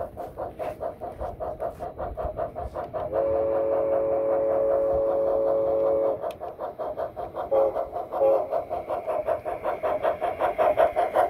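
Model Climax geared steam locomotive on a garden railway chuffing in a fast, even rhythm. It gives one long whistle blast of about three seconds a few seconds in, then two short toots. The chuffing grows louder near the end as the locomotive draws close.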